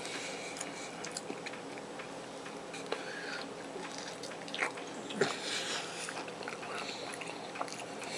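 A person chewing breaded popcorn shrimp, with scattered small clicks and crunches.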